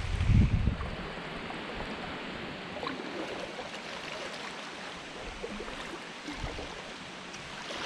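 Paddle strokes of a double-bladed kayak paddle splashing through calm river water, over a steady wash of water along the sea kayak's hull. A low wind rumble buffets the microphone in the first second.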